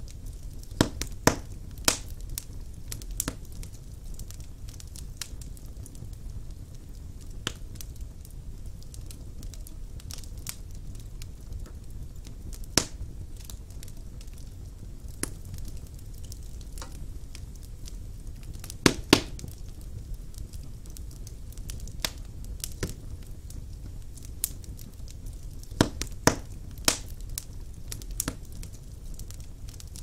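Wood logs burning in a fireplace: a steady low rumble of flames under sharp crackles and pops at irregular intervals. The loudest pops come in quick clusters about a second in, a little past the middle, and near the end.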